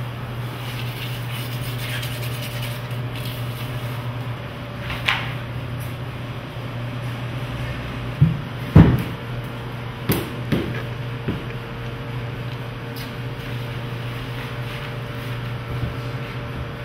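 A steady low hum, with a brief swish and then a handful of sharp knocks, one of them much louder than the rest, just past halfway through.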